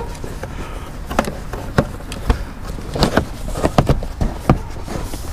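Irregular knocks and taps, a dozen or so, as hands press and work the carpeted cargo floor of an SUV back into place, over a steady low rumble.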